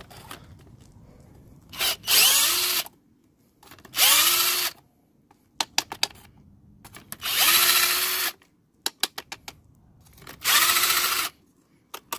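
Cordless drill spinning a socket on an extension, backing out the bolts of an automatic transmission's oil pan. It runs four times for about a second each, its pitch dropping and then holding steady as each bolt spins free. Short clicks fall between the runs.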